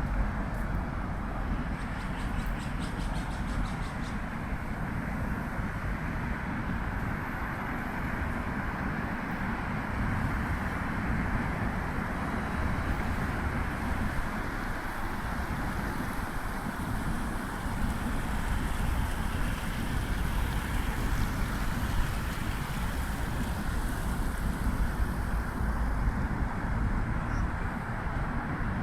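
Steady traffic noise from the busy Second Ring Road running alongside the park: a constant, even rumble of many passing vehicles.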